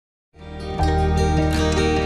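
Background music with plucked strings, coming in after a brief silence about a third of a second in and quickly rising to full loudness.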